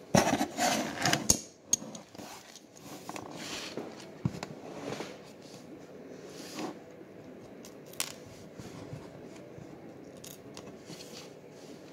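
Fingers handling small metal hardware on a metal mounting plate: an LED bezel's nut and ring being unthreaded and fiddled with. A burst of scraping and rustling in the first second, then a few light metallic clicks over quieter handling.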